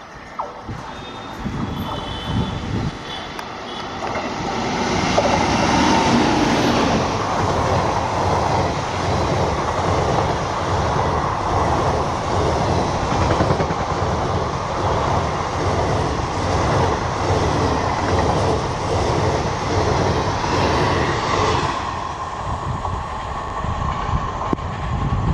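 Express passenger train hauled by an electric locomotive passing at speed. The noise builds over the first few seconds into a dense, steady rush with a rapid rhythmic clatter of coach wheels on the rails, and eases after about 22 seconds as the last coaches go by.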